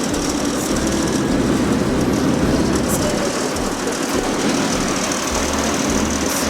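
Boat engine running steadily, a dense, even mechanical drone.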